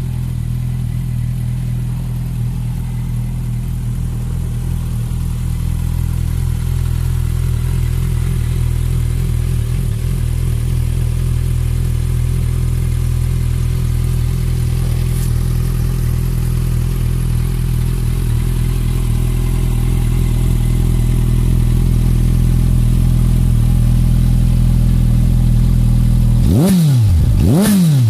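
Suzuki GSX650F's inline-four engine idling steadily through an Akrapovic carbon-fibre exhaust, then revved in two quick throttle blips near the end.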